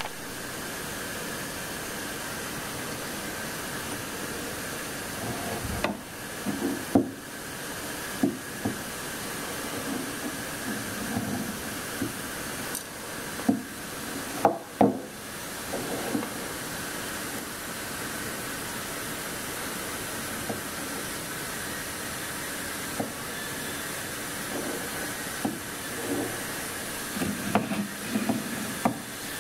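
A BMW map-controlled thermostat in its metal housing handled and knocked against a wooden tabletop: scattered short knocks and clicks in several small clusters, over a steady hiss.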